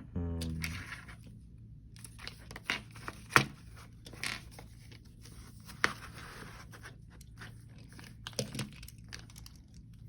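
LEGO bricks being handled and pressed together: scattered sharp plastic clicks and rattles, the loudest about a third of the way in, with some rustling between them. A brief low hum sounds right at the start.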